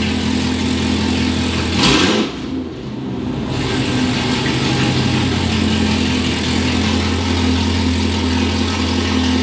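Straight-piped Camaro ZL1's supercharged 6.2-litre V8 idling loud, with a deep steady drone. About two seconds in it gives a quick rev that falls away; the idle dips briefly, then settles back.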